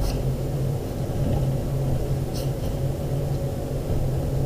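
Steady low hum in the room, with two brief faint scratchy rubs of an eraser on paper as pencil marks are cleaned up.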